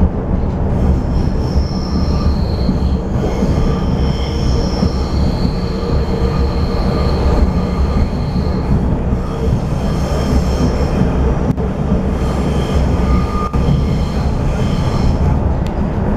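DB class 485 S-Bahn electric train running, heard from inside the carriage: a steady low rumble of wheels on rails. High-pitched wheel squeal rises and fades twice, once for most of the first half and again through the second half, with an odd click from the track.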